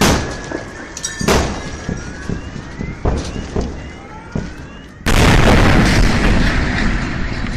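Distant booms from the Chelyabinsk meteor's airburst and fragment explosions: several sharp reports over the first few seconds, like an artillery barrage, with rising wails in the background. About five seconds in, a much louder continuous roar sets in suddenly.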